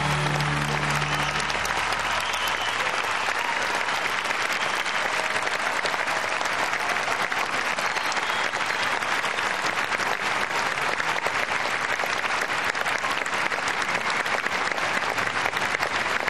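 Large arena crowd applauding steadily, with the last held chord of the music fading out about two seconds in.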